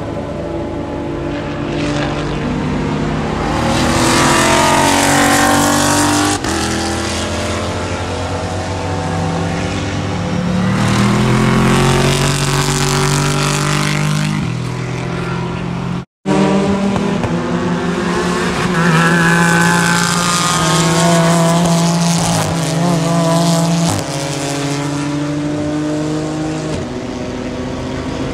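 Race car engines running on the circuit, their notes swelling, rising and falling away as cars go by several times. The sound cuts out for an instant about halfway through.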